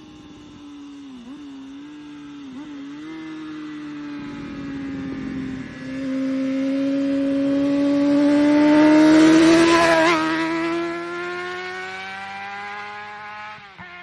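Honda CBR600RR inline-four with a GPR aftermarket exhaust riding past at speed: the engine note dips twice in the first three seconds, then climbs steadily in pitch and grows loud as the bike passes close about nine to ten seconds in, and keeps rising as it pulls away, with another quick dip in pitch near the end.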